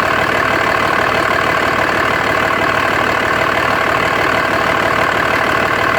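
2004.5 Dodge Ram 2500's 5.9-litre Cummins inline-six turbodiesel idling steadily; the owner wonders whether this idle is abnormally rough.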